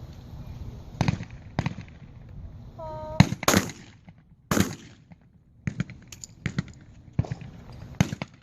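Shotguns firing on an Olympic trap range: a string of sharp shots of varying loudness, some close and some from farther off, with a loud close pair about three seconds in and another loud shot about a second later. A brief call is heard just before the close pair.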